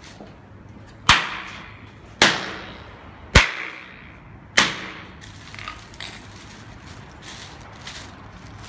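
Four hammer blows about a second apart on a block of hard hot wax wrapped in a plastic bag on a tiled floor, breaking it up. Each blow is a sharp crack with a short ring-out.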